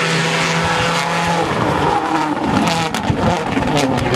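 Rally car engine running hard at high revs on a stage, its note held for about a second and a half before it shifts and wavers as the car changes gear and slows. Several sharp cracks come in the last second or so.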